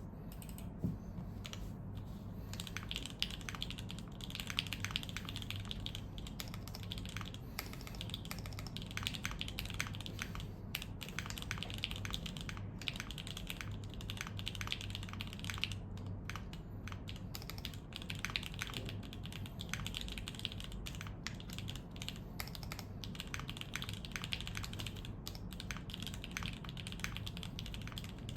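Typing on a Hoshizora custom mechanical keyboard with Gateron Slay Type A switches in a POM plate, O-ring mounted and capped with ABS keycaps: quick runs of crisp keystroke clicks with short pauses between them.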